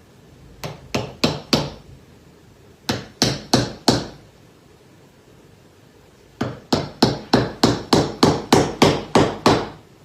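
Mallet blows on wood, driving a new wood wedge into the slotted old wedge in an axe handle to stop the head wobbling. Four blows, then four more, then a faster run of about eleven blows.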